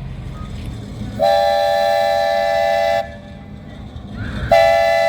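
Train horn sounding two long blasts, each a steady chord of several tones. The first lasts nearly two seconds, and the second starts about four and a half seconds in.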